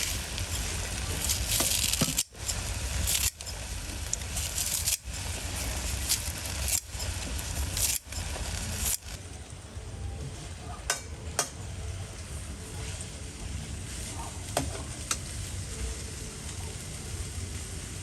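Food sizzling as it fries in a pan while being stirred, with a few sharp clinks of a utensil against the pan in the second half. The sound breaks off briefly several times in the first half.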